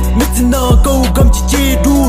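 Hip hop music: a rap track's beat with deep bass hits that drop in pitch, over a steady backing.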